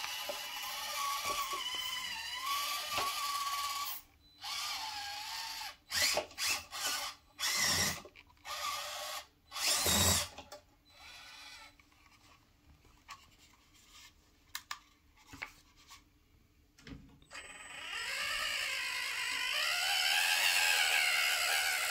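Small electric motor whining in bursts, its pitch rising and falling as it speeds up and slows. A long run opens the stretch, several short spurts follow, then a quieter stretch, and a second long run comes near the end.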